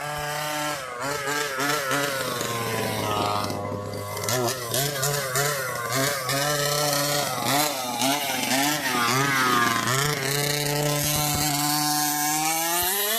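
Two-stroke RC car engine revving up and down over and over as the car is driven, then holding a steady high rev for the last few seconds.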